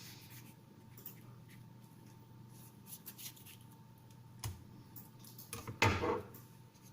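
Quiet handling sounds: scattered faint clicks and light scratching, with a sharper click about four seconds in and a louder rub or scrape lasting about half a second near the end.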